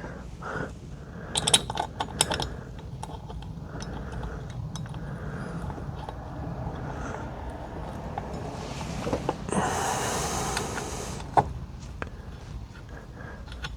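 Small metal clicks and handling noises as socket-head bolts are threaded loosely by hand with an Allen key into a steering wheel quick-release hub, with a cluster of clicks early on. About nine seconds in there is a two-second burst of rustling noise, and a single sharp click follows.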